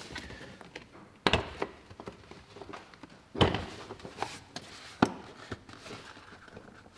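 Plastic engine cover of a Mercedes W205's 2.0-litre petrol engine being gripped and tugged off its mounts by hand: about four dull knocks and thunks of hard plastic, the loudest a little over a second in and about three and a half seconds in.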